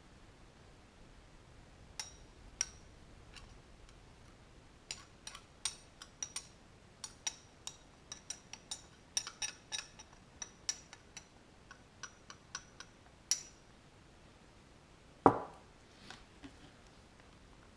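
Small hard objects clicking and clinking in an irregular run of light taps, then one louder knock near the end.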